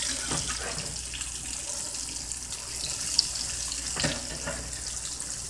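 Salmon croquettes frying in hot oil in a pan: a steady sizzle.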